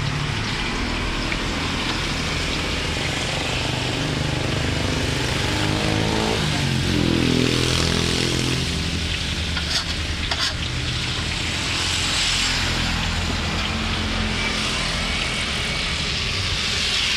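Hot oil sizzling and bubbling steadily in a large wok as pieces of champedak deep-fry. About halfway through, a passing engine rises and fades, followed shortly by two sharp clicks.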